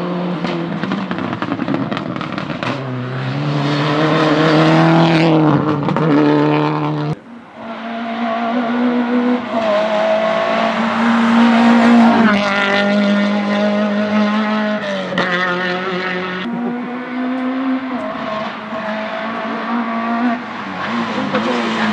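Hill-climb race car engines running at full throttle, their pitch climbing and dropping back through gear changes. The sound changes abruptly about seven seconds in and again around sixteen seconds, as one car's run gives way to another.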